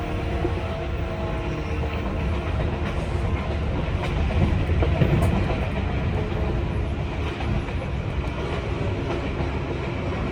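Running sound inside a JR 185 series EMU motor car: the MT54 traction motors and the wheels on the rails make a steady rumble, with a few sharp clicks from the rails.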